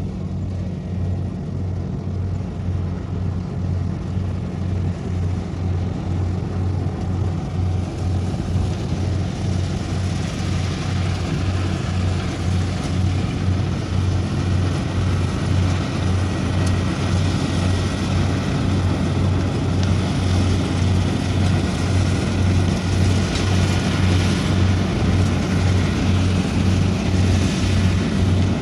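Kubota rice combine harvester at work cutting rice: a steady diesel engine drone with an even low pulse under the hiss of the cutting and threshing gear. It grows slightly louder and hissier through the second half.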